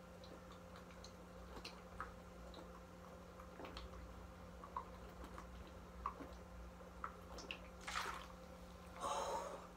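Faint gulping and swallowing as a man chugs soda straight from the bottle, with scattered small wet clicks. Near the end come two short breathy rushes, the second longer and louder.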